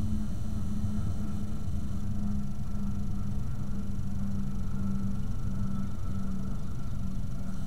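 Steady low electrical hum with a held buzzing tone, the trail camera's own recording noise.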